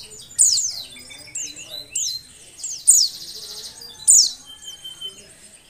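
Female white-eye (pleci) calling in breeding condition: high, sharp down-slurred notes about once a second, with buzzy chattering trills between them.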